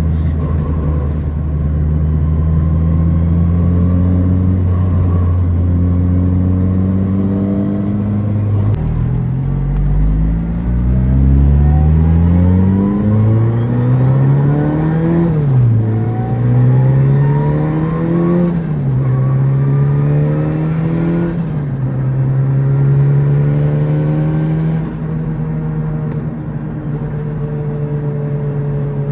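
Turbocharged Honda Civic engine pulling away and accelerating hard through the gears. The pitch climbs and drops back at three shifts, with a high whine rising alongside each pull, then settles to a steady cruise near the end.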